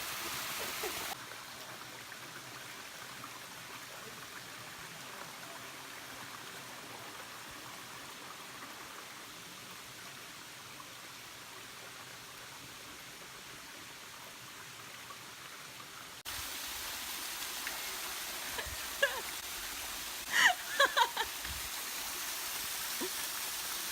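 Steady rush of flowing water as a constant hiss, dropping in level about a second in and coming back louder at about 16 s. A few brief voice sounds break in near the end.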